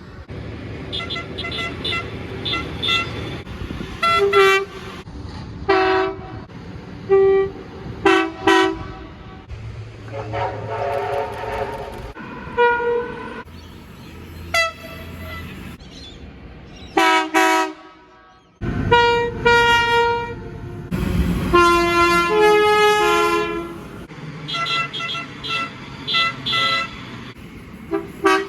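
Locomotive air horns sounding a series of blasts, some short and some longer, each a chord of several notes, over the low rumble of a train. The horns come in separate clips with abrupt changes between them.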